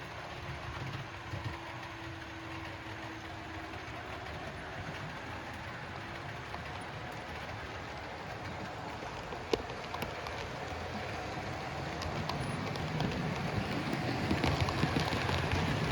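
Model train running along the track: a steady rumble of motor and wheels that grows louder near the end, with one sharp click a little over halfway through.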